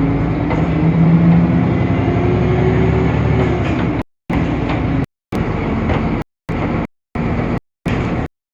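Temsa Avenue LF city bus running, its DAF PR 228 diesel engine and ZF Ecolife automatic gearbox giving a steady drone with a whine that drifts up and down in pitch. From about four seconds in, the sound cuts out completely for short moments, six times.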